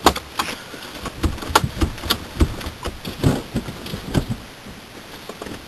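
Handling noise: irregular knocks, bumps and rubbing as a camera is set down and settled on a hard surface, dying away after about four seconds.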